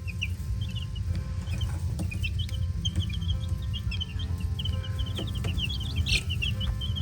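A brood of baby chicks peeping, many short high cheeps overlapping quickly, over a steady low hum.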